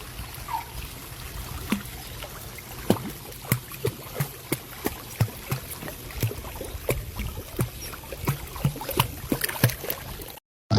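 A puppy paddling in water: light, irregular splashes and slaps, a few a second, over a steady watery hiss. It cuts off just before the end.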